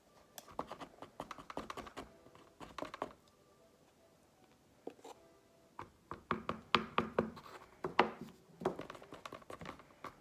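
A utensil stirring and scraping a slime mixture in a bowl: rapid irregular clicks and scrapes in two bursts, a short one in the first three seconds and a longer one from about six seconds in.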